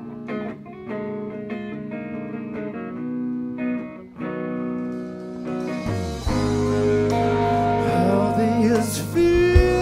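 Live band music. A guitar picks a chord pattern alone at first; about six seconds in, bass guitar and drums with cymbals join, and the sound grows louder. A cymbal crash comes near the end, and singing starts around the same time.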